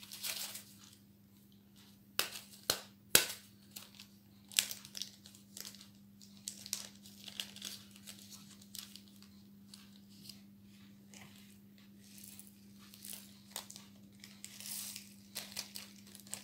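Small plastic zip bag of diamond painting drills crinkling and rustling as it is handled and tipped over a plastic pill organiser, with irregular sharp clicks and ticks, a few louder ones a couple of seconds in. A faint steady low hum runs underneath.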